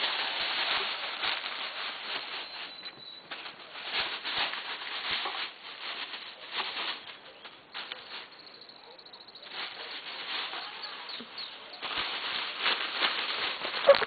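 Plastic bags and bubble wrap crinkling and rustling in quick irregular bursts as a ferret burrows and scrambles through them, with a brief lull just past the middle.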